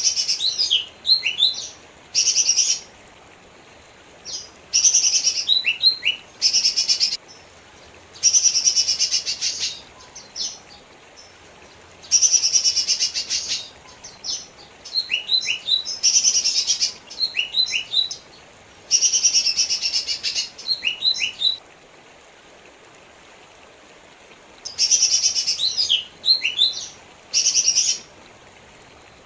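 Cucak ijo mini (lesser green leafbird) singing in repeated bursts. Dense, rapid buzzy chattering phrases alternate with quick, sharp, downward-sliding whistles, with short pauses between bursts.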